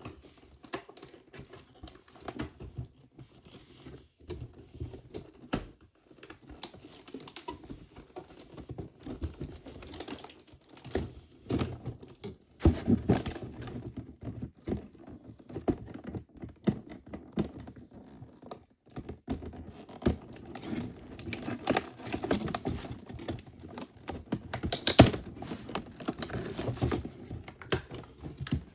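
Small plastic pieces and packaging being handled: an irregular string of light clicks and taps with some rustling, a few louder knocks near the end.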